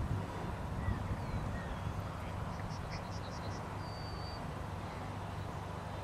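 Faint whine of the RC Airbus Beluga model's electric ducted fans flying past at a distance, under a steady low rumble and hiss. About halfway through, a bird chirps a quick run of short high notes, then gives a brief high whistle.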